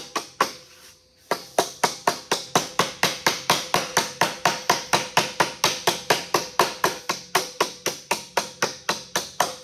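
Rubber mallet tapping along the edge of a 26-gauge galvanized steel sheet clamped to a board, bending a hem over past 90 degrees. The taps are quick and even, about five a second, with a brief pause about a second in.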